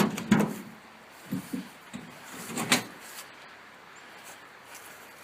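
Several short knocks and clunks of things being handled. The loudest two come right at the start, with fainter ones about a second and a half in and near three seconds in.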